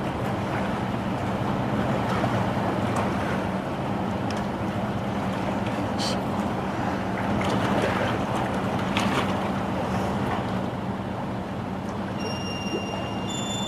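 Steady rushing ambient noise with a low, even hum underneath. Near the end, faint chime-like music tones come in.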